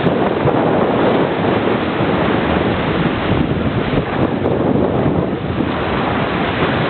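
Strong wind buffeting the microphone over the steady rush of waves around a small sailboat under sail.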